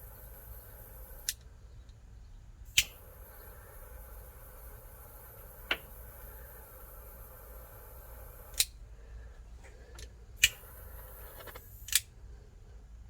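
A hand tool snipping wire, about six sharp, separate clicks spaced irregularly a second or more apart, over a low steady hum.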